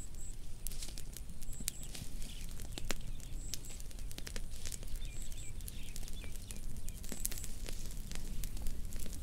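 Fire crackling, with many small sharp pops at irregular intervals over a steady low rumble. Faint, high chirps come in pairs every second or so.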